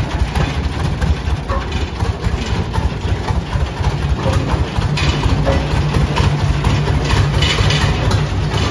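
1929 John Deere GP's two-cylinder, four-stroke, side-valve horizontal kerosene engine running slowly and steadily as the steel-wheeled tractor is driven at walking pace.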